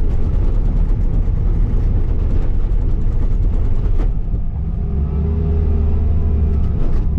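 Skid steer engine running loudly with a low rumble, rough and rattly at first; a sharp click about four seconds in, after which the engine settles into a steadier hum.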